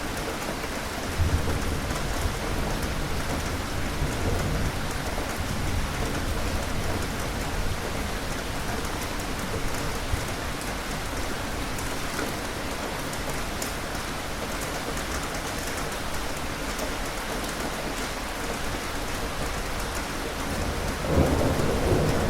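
Steady rain pattering, with low rolls of thunder: one rumbles in about a second in and fades over several seconds, and a louder one swells near the end.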